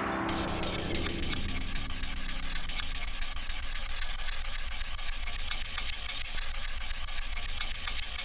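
Quick, steady back-and-forth scribbling on paper, a colouring-in sound effect, with fast, even strokes.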